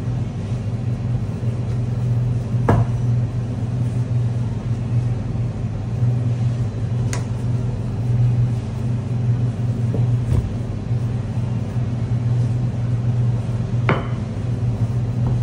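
Steady low hum of commercial kitchen machinery, with about five sharp knocks and clicks as a wooden rolling pin works laminated croissant dough on a stainless steel worktable.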